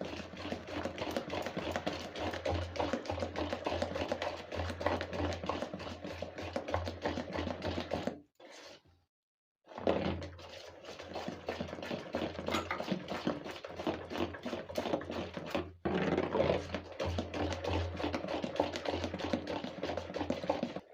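Dosa batter being beaten fast by hand in a large bowl to aerate it after baking soda has gone in: a quick, steady run of slapping, clicking strokes, broken off for over a second about eight seconds in.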